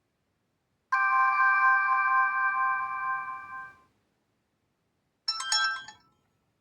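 Reeder P13 Blue (2021) smartphone playing two of its built-in alert tones one after another: a held chord of several notes lasting about three seconds and fading away, then after a short gap a quick run of chime notes lasting under a second.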